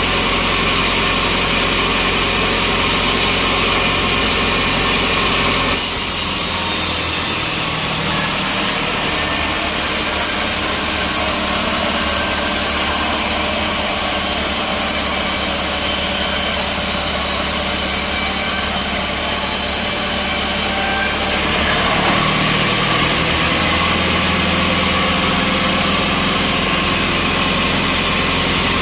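Sawmill engine running steadily; about six seconds in a saw starts cutting through a log, adding a loud hiss, and the cut ends about twenty-one seconds in, leaving the engine running.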